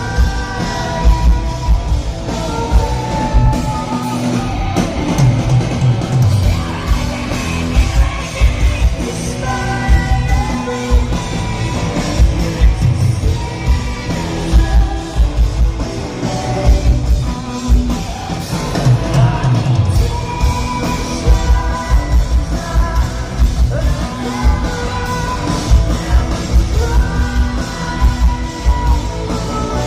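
Live rock band playing loudly: drums, guitars and bass with a singer, vocals partly yelled, in a large hall.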